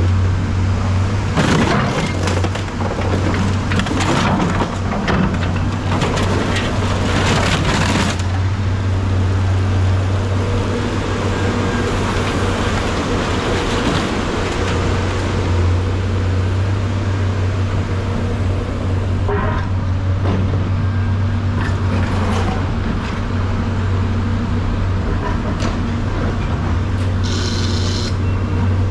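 A motor vehicle running, with a steady low drone throughout. Loose rattling and knocking come through the first several seconds, and there is a short hiss near the end.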